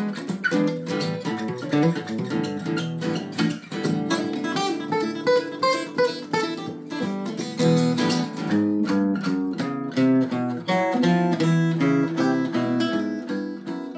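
Nylon-string classical guitars playing a tune: a busy run of plucked notes over low bass notes.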